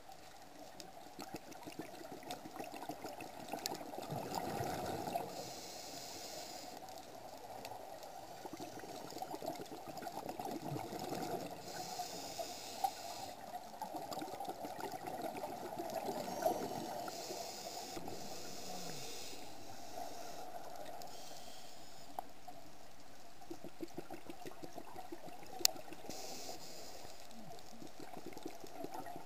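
Scuba regulator breathing underwater: bubbly exhalations, each followed by a hissing inhalation, four times about every six seconds, over a steady hum with a few sharp clicks.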